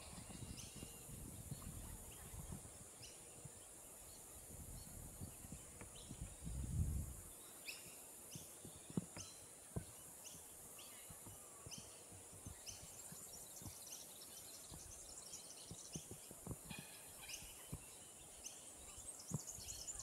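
Australasian figbirds calling with many short, repeated chirps, more of them in the second half, over a steady high hiss. A low rumble in the first several seconds ends with a dull bump about seven seconds in.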